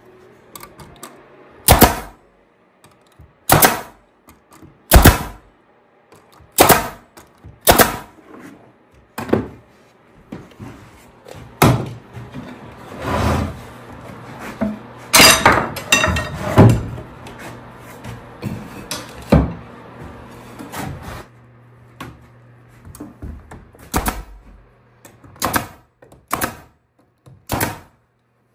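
Staple gun driving staples into wooden boards to hold them together: more than a dozen sharp shots, irregularly spaced a second or two apart. A steady low hum runs under the shots through the middle stretch.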